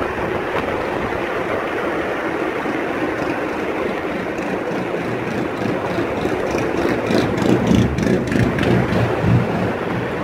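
Steady wind and road rushing while riding an electric scooter, picked up by a phone carried in the rider's pocket, so the sound is muffled and mixed with rubbing. In the second half comes a run of knocks and low thumps.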